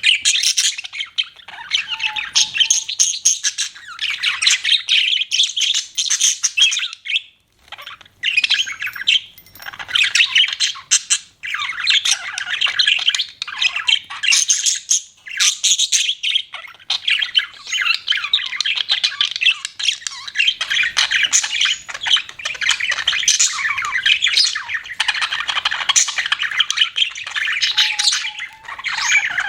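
Pet budgerigars chattering and chirping in a continuous stream of rapid, high warbling calls, with a brief pause about seven seconds in.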